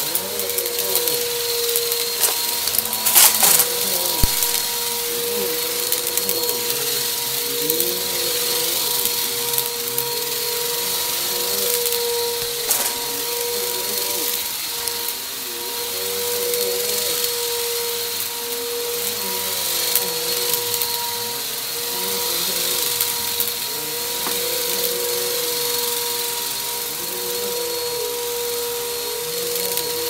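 Bissell bagless upright vacuum cleaner running with a steady motor hum and whine as it is pushed back and forth over a rug, crunching up small bits of debris. A loud burst of crackling comes about three seconds in.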